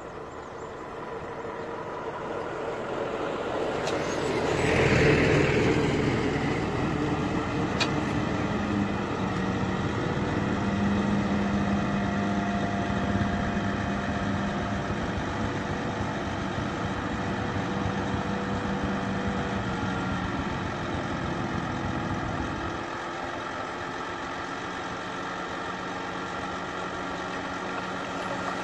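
Heavy eight-wheel dump truck's diesel engine running steadily as the loaded truck reverses, with a short loud hiss about five seconds in. Near the end the engine note changes as the hydraulic hoist raises the tipper bed to dump its load of soil.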